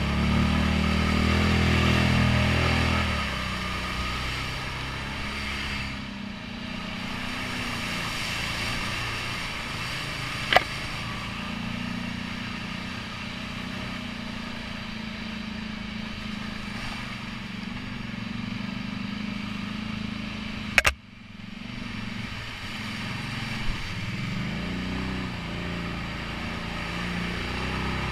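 ATV engine running under load on a muddy trail, revving hard for the first few seconds, then settling to a steady drone. Two sharp knocks, about ten and twenty-one seconds in. The revs rise and fall again near the end.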